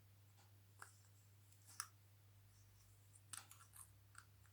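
Faint scattered clicks and small scrapes of a flashlight's parts being handled and screwed together, over a steady low hum.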